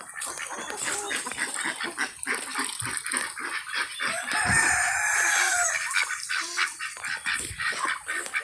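A rooster crows once, one long call starting about four seconds in, over short clucking calls and the steady hiss of heavy rain.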